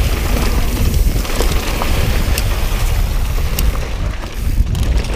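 Mountain bike rolling down a rough dirt singletrack: a steady rumble of wind buffeting and tyre noise on the action camera's microphone, with scattered sharp clicks and rattles from the bike over rocks.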